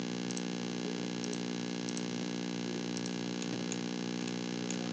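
Steady electrical hum with a constant hiss underneath, and faint scattered ticks of a computer mouse being clicked.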